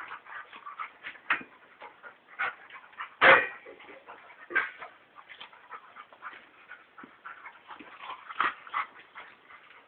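Two dogs play-wrestling, giving short irregular yips and whimpers, the loudest about three seconds in.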